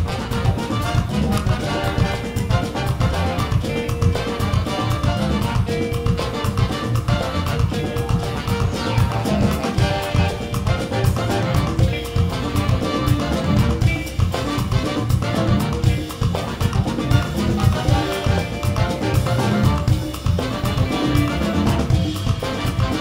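Live band playing an instrumental number with a horn section of trumpet, saxophone and trombone over electric guitar, bass guitar, keyboards and drum kit. The beat is steady and driving.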